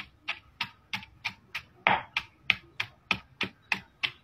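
Pestle pounding chilies and spices in a mortar, a steady run of sharp knocks about three a second.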